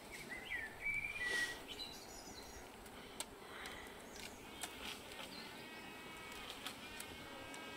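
Honeybees buzzing around a slab of comb, a steady hum that comes in about five seconds in. A bird chirps a few times near the start, with faint clicks of handling.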